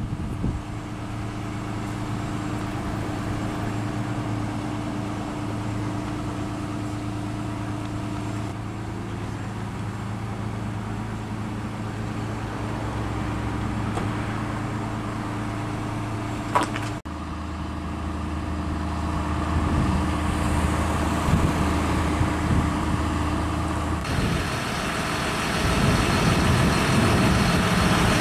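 Steady low hum of idling vehicle engines with road traffic noise, a single sharp click about 17 seconds in, and a louder passing rumble in the last third.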